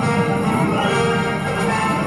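Soundtrack music with several held notes over a dense low layer.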